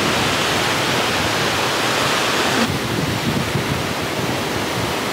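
Ocean surf breaking and washing up the shore: a steady rushing noise that turns a little duller about two and a half seconds in.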